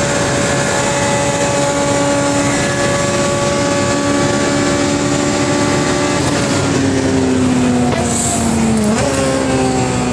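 Honda Civic engine running hard at speed, heard inside the cabin over road noise: a steady engine note whose pitch sags slightly and then jumps about nine seconds in.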